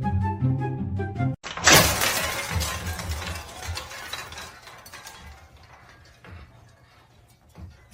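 Background music that cuts off abruptly, then a sudden loud crash of something shattering, with clinking and clattering that dies away over a few seconds.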